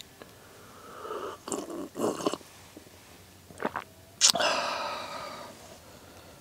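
A person slurping a few sips of hot tea from a mug, then a sudden, loud breathy 'ahh' that trails off.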